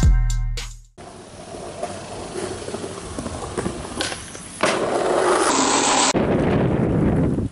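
Skateboard wheels rolling on an asphalt street, a steady rough rumble that gets louder from about halfway in.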